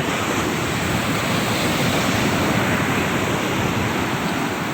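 Ocean surf rushing up the beach: a steady roar of breaking waves and foam, swelling a little midway and easing off toward the end.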